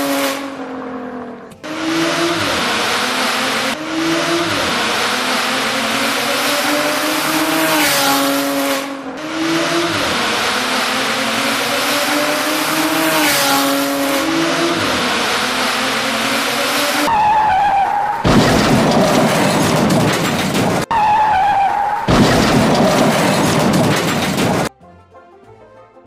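Race-car sound effects: an engine revving in repeated rising and falling passes, then about seven seconds of loud tyre screeching. It cuts off suddenly into quiet background music near the end.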